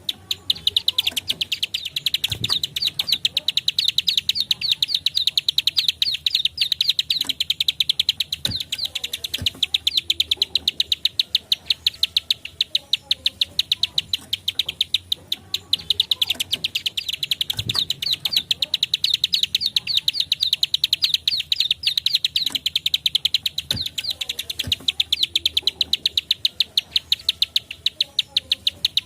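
Plain prinia (ciblek sawah, prenjak klik) giving its dry clicking song: a fast, steady run of high clicks, about ten a second, with a few faint low knocks underneath.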